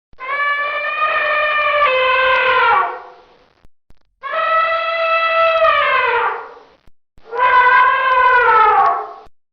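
Elephant trumpeting: three long, loud, horn-like calls, each dropping in pitch as it ends.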